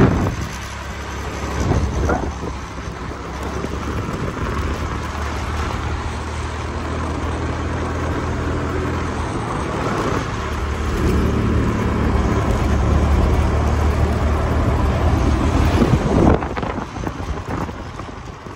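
Scooter engine running steadily while riding, with wind rushing over the microphone; louder wind buffets at the start and about 16 seconds in, and the sound drops off near the end as the scooter slows.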